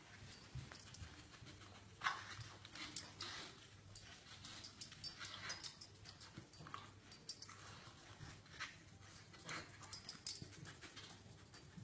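A Rottweiler puppy nosing and pawing at a wooden dog puzzle board, knocking its green covers and wooden base about in a run of irregular light clicks and knocks.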